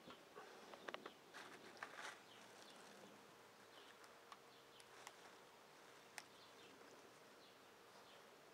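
Near silence: faint clicks and rustles of a 3.5 mm audio cable and iPod being handled, mostly in the first two seconds, with a few isolated ticks later.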